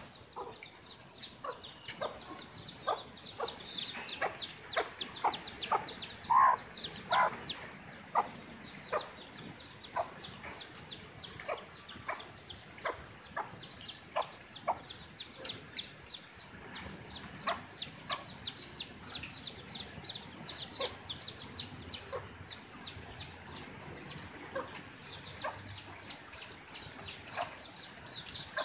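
A clutch of baby chicks peeping almost without pause, in quick, high, falling chirps, while their mother hen clucks softly and steadily beneath them. About six seconds in, the hen gives a louder double call.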